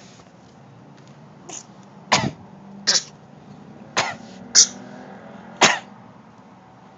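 A series of short, sharp coughs, about six, coming irregularly a second or so apart.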